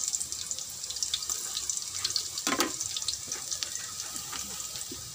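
Minced garlic sizzling and crackling in cooking oil in a wok. The oil is kept only moderately hot so the garlic doesn't burn. A brief knock sounds about halfway through.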